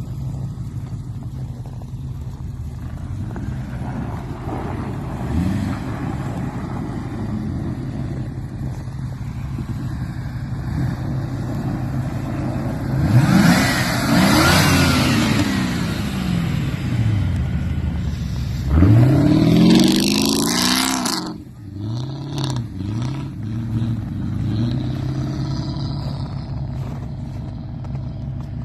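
1990 Audi V8's 3.6-litre 32-valve V8 running steadily, then revving up strongly twice as the car drives off. The second rev rise cuts off suddenly, and a few lighter rises in revs follow.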